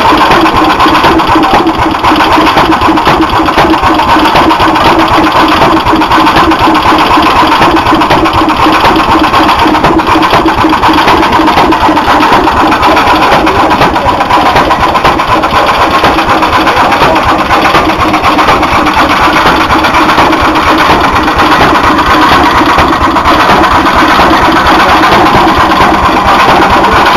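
Single-cylinder hit-and-miss stationary engine running loudly and steadily, its rapid rhythm continuing unbroken.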